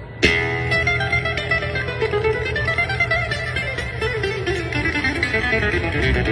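Nylon-string classical guitar played fast through a small speaker: a hard-struck chord about a quarter second in, then rapid plucked runs, one of them descending, in a flamenco-like style.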